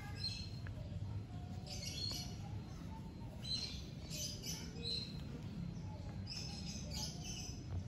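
Small birds chirping in short high calls, scattered throughout, over a steady low background rumble.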